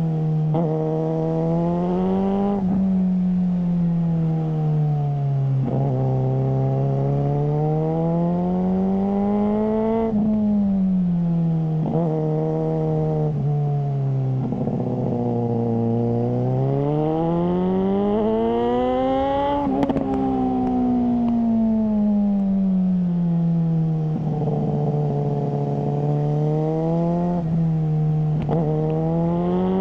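Suzuki GSR600's inline-four engine through a GPR Ghost aftermarket exhaust, riding along: the revs climb and fall again several times as the throttle is opened and rolled off, with a few short breaks in the note.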